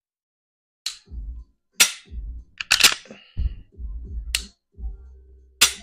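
Dry-firing an unloaded PSA Dagger 9mm striker-fired pistol: about six sharp, crisp clicks of the trigger breaking and resetting, roughly one a second, with low thumps of the gun being handled between them.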